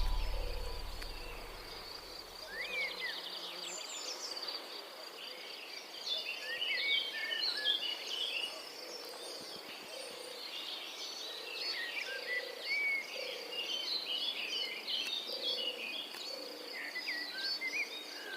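Many small birds chirping and calling over one another in quick, varied notes, over a steady high insect-like buzz. Background music fades out in the first few seconds.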